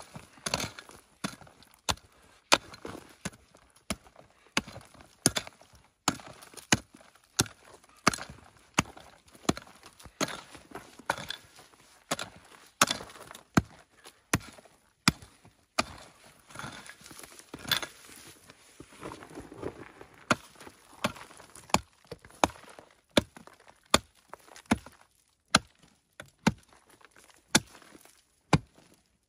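Pickaxe striking hard, stony soil over and over, about one or two blows a second, each blow a sharp chop followed by a short rattle of loosened gravel and clods.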